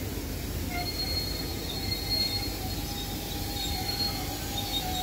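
Steel wheels of slow-moving vintage passenger coaches squealing on the rails over a low rolling rumble. Thin high squeals start about a second in and come and go.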